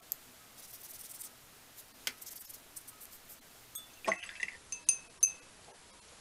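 A paintbrush at work among watercolour paint pans and a glass of rinse water: soft scrubbing and light taps, then several sharp clinks with a brief glassy ring a little past halfway.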